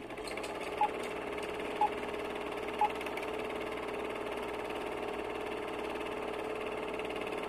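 Old film-projector sound effect: a steady whirring hum, with three short beeps a second apart, like a countdown leader, in the first three seconds.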